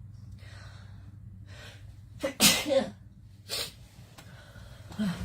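A woman sneezes once, loud and sudden, about two seconds in, the sneeze set off by a nasal swab. Faint breaths come before it, and a short breath follows.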